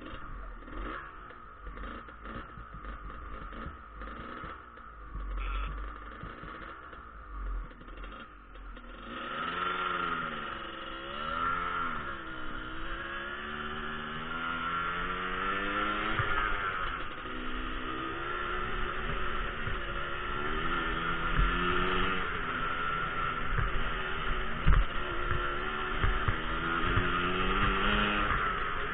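Motorcycle engine under way, its pitch repeatedly rising and falling with the throttle. The first third is quieter, with scattered clicks and a low rumble; about a third of the way in, the engine grows louder and stays so.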